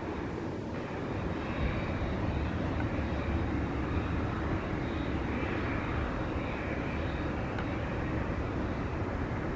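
Boeing 717 jet airliner's Rolls-Royce BR715 turbofan engines running as it comes in to land: a steady low rumble with a faint high whine.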